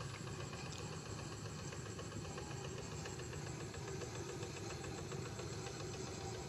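An engine running steadily, a continuous low drone with no change in speed.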